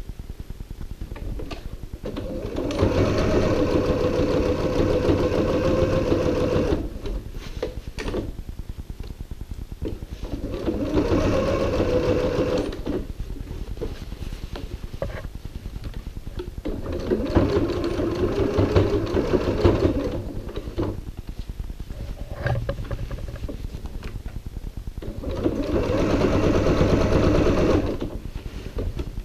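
Electric home sewing machine stitching in four louder runs of a few seconds each, with quieter stretches between. It is sewing a very narrow seam, about an eighth of an inch, around the edges of a cotton fabric bag.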